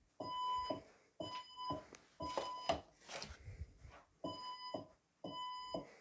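Fire alarm evacuation tone from a Fire-Lite voice evacuation system, sounding in the temporal-three pattern: three half-second beeps about a second apart, a pause, then the next set begins. Its steady, buzzy pitch is around 1 kHz. Faint rustling and clicks sound between the beeps.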